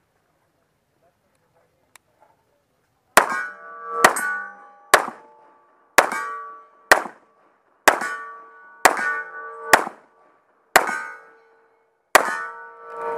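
A string of about ten gunshots, roughly one a second, starting about three seconds in, each followed by the metallic ring of a struck steel target.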